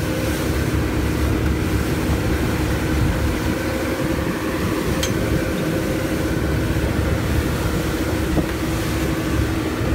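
Rigid inflatable dive boat under way at speed: its 250 hp outboard motor runs with a steady drone over the rumble of wind and water rushing past the hull.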